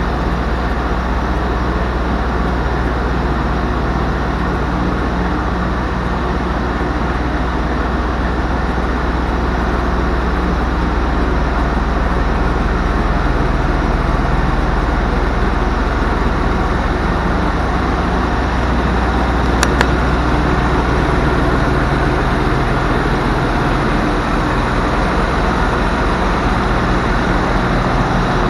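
Diesel engine idling steadily at an even pitch, with a single sharp click about twenty seconds in.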